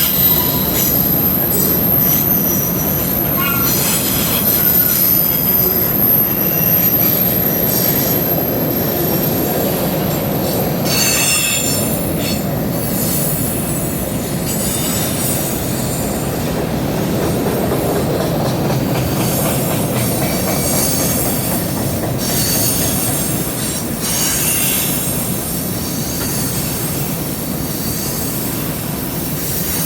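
Railroad cars rolling across a steel rail bridge in a steady, continuous rumble, their wheels squealing with a thin, high, held tone through roughly the first eleven seconds, with shorter squeals coming and going after that.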